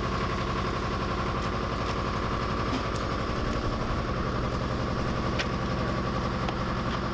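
Air compressor running steadily with an even, fast pulsing, feeding an air hose; a few faint clicks over it.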